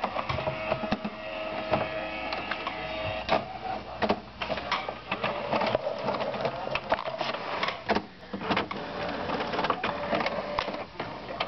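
A printer running a copy: its mechanism whirs with a steady motor tone, broken by frequent clicks and clunks.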